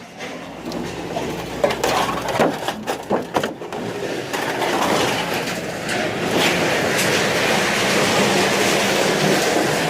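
Scrap metal being moved about: a run of clanking knocks in the first few seconds, then a steady scraping, grinding clatter.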